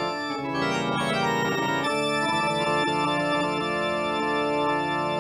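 Organ playing held, sustained chords as a radio-drama music bridge, the chord shifting twice in the first two seconds.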